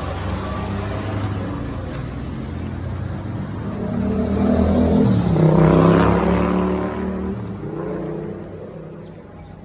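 A motor vehicle driving past close by: its engine and tyres grow louder, peak about halfway through with a falling pitch as it passes, then fade away.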